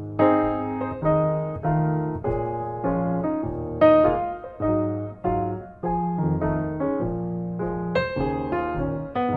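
Solo piano music: a flowing run of single notes over low held chords, several notes a second.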